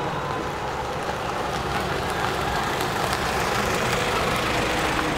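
Steady outdoor background rumble and hiss, with no distinct events.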